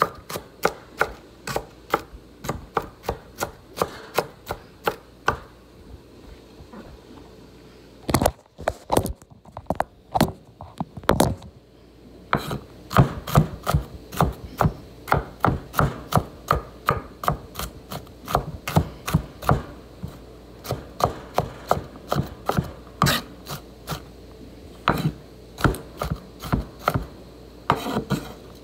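Chef's knife chopping celery on a wooden cutting board: a steady run of sharp knocks, about three a second, easing off briefly about six seconds in before picking up again.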